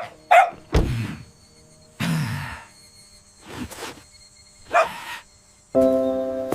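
A string of short, separate knocks and thumps with pauses between them. Near the end, soft music with held notes begins.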